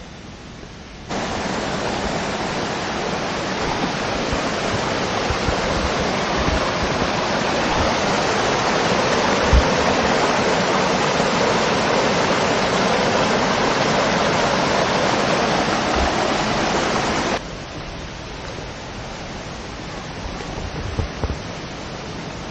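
Steady, loud rushing noise that starts abruptly about a second in and cuts off abruptly near the end, leaving a quieter rushing noise.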